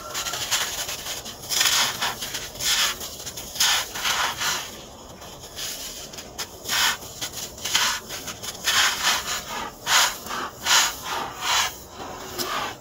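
Moulded cylinder of dry sand crushed and crumbled between the hands, a run of about a dozen short gritty crunches with a brief lull near the middle.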